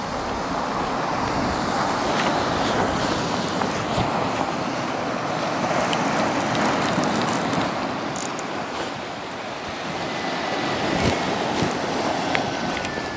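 Surf breaking and washing over a boulder and pebble shore, a steady rush that swells and eases over several seconds, with some wind on the microphone.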